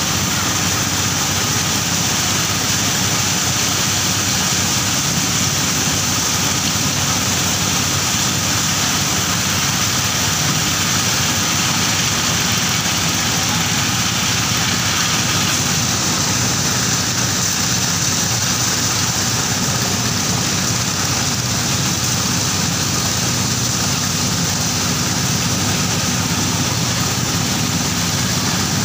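Corn mill running steadily: a loud, continuous drone of the engine driving it, with a constant grinding hiss, unchanged throughout.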